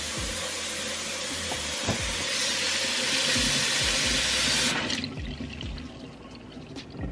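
Kitchen faucet running into a stainless steel sink while raw chicken tenders are rinsed in a plastic bowl. The rushing water gets louder about two seconds in, then the tap is shut off suddenly near five seconds, leaving a few light knocks.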